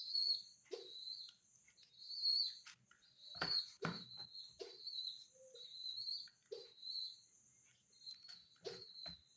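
Pigeon squabs peeping in repeated short, high squeaks, the begging calls of chicks being hand-fed, with scattered clicks and a couple of louder knocks from handling about three and a half seconds in.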